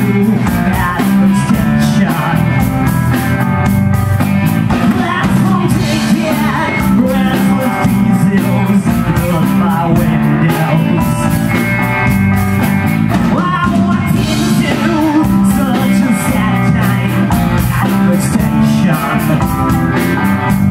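Live rock band playing: a man singing over electric guitar, bass guitar, keyboard and drums.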